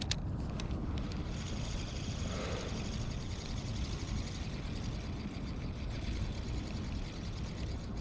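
Steady low rumble of wind on the microphone, with a few sharp clicks in the first second.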